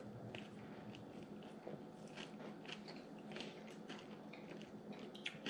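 A person chewing a mouthful of fish taco in a soft flour tortilla: faint, irregular soft clicks and smacks of the mouth.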